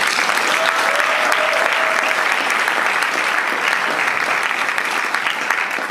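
Audience applauding, a dense steady clapping from a full hall that begins to die down near the end.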